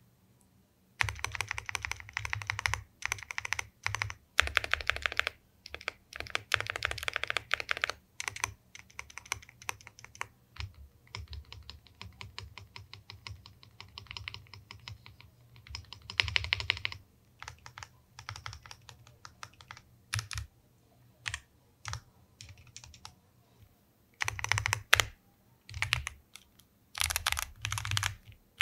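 Typing sound test on a MageGee Lite 87 mechanical keyboard with MageGee's own pre-lubed linear switches: fast runs of keystrokes, thinning to slower single key presses past the middle, then quick typing again near the end.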